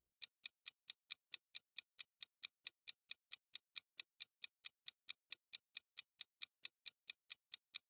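Quiz countdown timer sound effect: quiet, even clock-like ticking at about four to five ticks a second.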